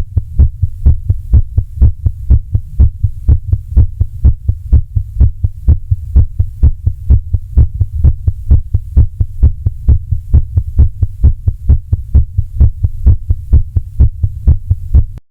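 Heart sounds: a regular heartbeat of low thumps repeating several times a second. The beats cut off abruptly near the end.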